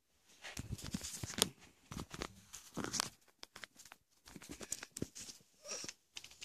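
Irregular rustling, scraping and light taps of things being handled close to the microphone.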